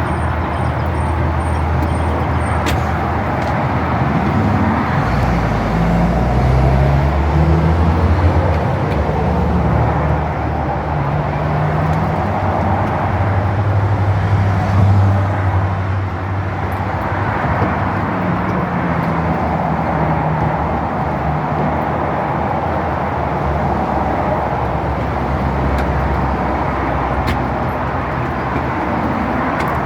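An engine running continuously, its low pitch shifting up and down now and then, under a steady rushing noise.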